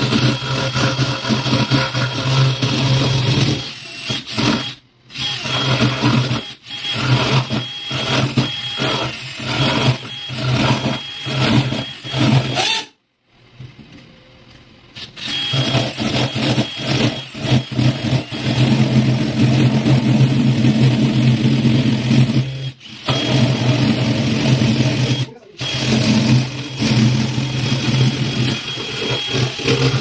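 DeWalt 20V cordless drill boring into a wooden door through a lock-fitting jig, its motor running in a series of short trigger pulses for several seconds, stopping for a couple of seconds, then running steadily with two brief stops.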